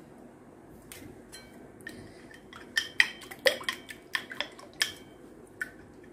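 Metal spoon clinking against a ceramic plate while an egg is beaten into a batter: a few scattered clinks, then a quick run of sharp, ringing clinks, about four a second, in the middle.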